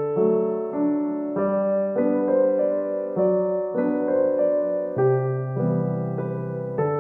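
Background piano music, a slow run of single notes and chords changing about every half second to a second.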